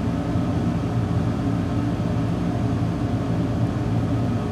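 Steady low machine hum with a few held low tones, like a fan or extractor running on an electronics workbench.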